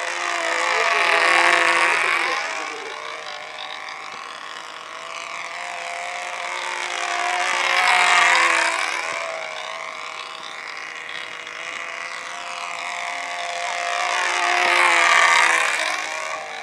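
Control-line aerobatic model plane's small engine and propeller buzzing steadily as it flies laps, growing loud three times, about every seven seconds, as it passes closest, its pitch rising and then falling with each pass.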